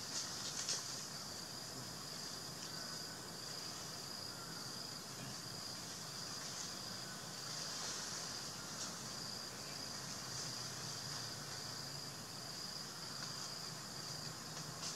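Steady high-pitched drone of insects in the trees, with a few short clicks in the first second.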